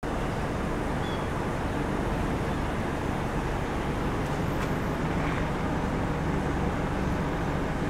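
Steady low background noise like distant traffic, even throughout with no distinct events.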